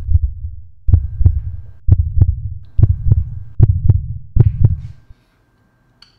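Heartbeat sound effect: five paired low thumps, lub-dub, a little under one a second, which stop about five seconds in.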